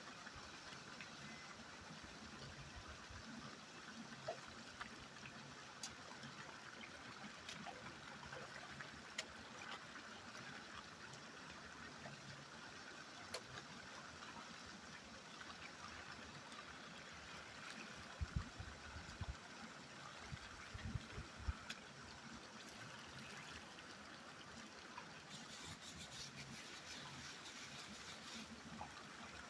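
River water flowing steadily, a soft even rush heard faintly. A few low thumps come about two-thirds of the way through.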